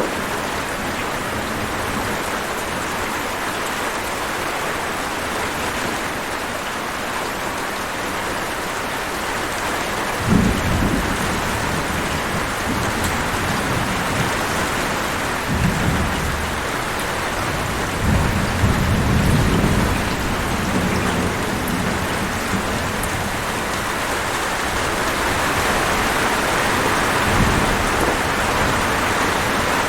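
Heavy rain falling in a steady hiss, with rolls of thunder rumbling low several times from about a third of the way in.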